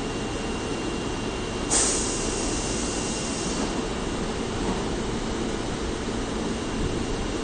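Osaka subway 22 series train standing at the platform with a steady hum, and a sudden burst of air hissing about two seconds in that dies away after about two seconds.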